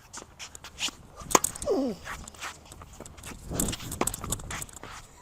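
Tennis rally: sharp racket-on-ball hits, the loudest about a second and a half in, with players' shoes scuffing on the court between them. A brief falling squeal comes just after the loudest hit.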